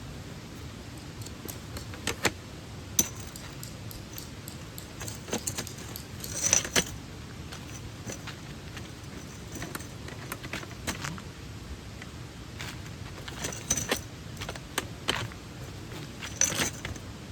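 Small metal items clinking and jangling as they are handled, in scattered clicks and short rattles, over the steady rush of a mountain stream.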